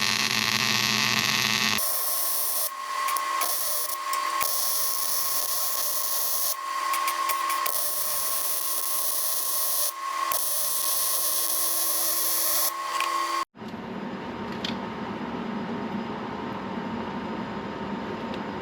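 Arc welding used to fill holes and gaps in poorly welded steel: a continuous crackling hiss with a steady high tone, broken by several short pauses between runs.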